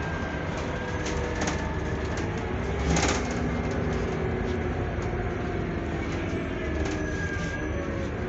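Interior of a Scania Citywide CN280UB CNG city bus under way: steady engine and road noise with a faint whine that drifts slowly in pitch, small rattles from the fittings, and a louder knock about three seconds in.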